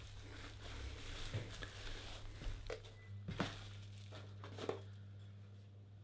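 Plastic bubble-wrap bag crinkling and rustling faintly as a trail camera is slid out of it, with a few light clicks of handling.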